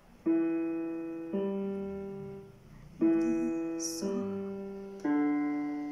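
Digital piano played slowly, one note at a time: five single notes of changing pitch, each struck and left to fade, with a slightly longer pause after the second.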